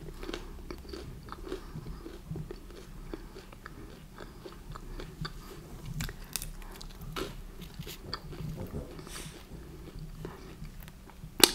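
Pizza being chewed: a continuous run of small sharp bites and mouth clicks.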